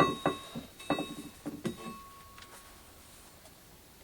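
Metal parts knocking and clanking together, about half a dozen sharp clanks in the first two seconds, with a metallic ring that hangs on and fades by about three seconds in.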